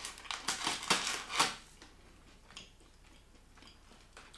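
Plastic snack bag of crispy crackers crinkling and rattling as a cracker is taken out: a handful of short, sharp crackles in the first second and a half.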